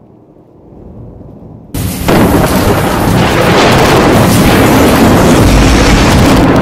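Thunder: a low, muffled rumble, then about two seconds in a sudden loud thunderclap that carries on as a loud, continuous roll.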